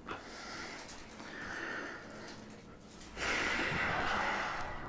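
A person breathing, heavy noisy breaths with no voice in them: a softer one about a second in and a longer, louder one about three seconds in.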